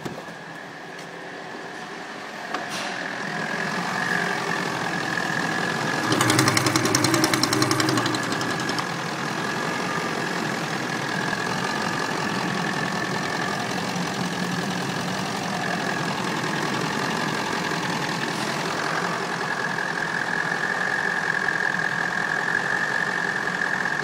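Mercedes-Benz OM628 4.0-litre V8 turbodiesel idling, getting louder over the first few seconds as it is heard up close in the open engine bay. A steady high whine runs over it, and a louder rattling stretch lasts about two seconds some six seconds in.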